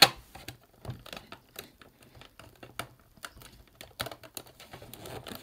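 Hard plastic display-base panels clicking and tapping as fingers press them together to lock them into place. It is a string of sharp, irregular clicks, the loudest right at the start.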